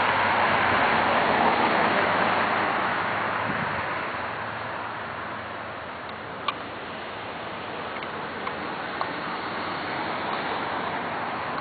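Road traffic: a vehicle passes with a rush of tyre and engine noise that is loudest in the first few seconds and then fades, leaving a steadier traffic hum with a couple of faint clicks.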